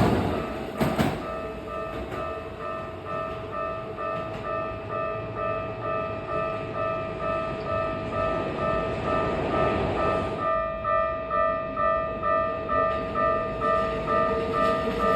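Japanese railway level-crossing alarm ringing in a steady repeating two-tone pulse, about two strikes a second. Train running noise fades in the first second or two, and a rushing noise swells and stops abruptly about ten seconds in while the alarm keeps ringing.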